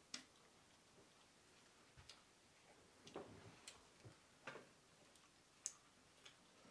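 A quiet room with faint, irregularly spaced small clicks and taps of people eating from a shared metal tray, as hands, bread and utensils touch the pan, dishes and tea glasses.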